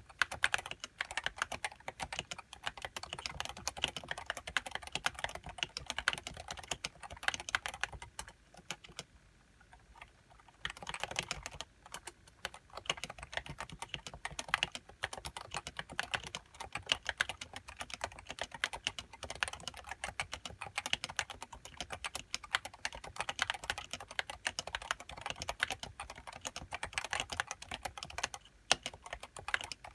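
Fast typing on a Leopold FC660C keyboard with 55 g Topre electrostatic capacitive switches and HiPro keycaps: a dense, even stream of keystrokes, with a short pause about nine seconds in.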